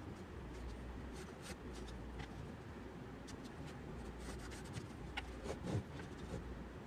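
Pencil scratching on a wooden board as it marks and traces around a plastic lid, with faint clicks and small knocks as the lid and pencil are handled; the loudest knock comes near the end. A low steady hum runs underneath.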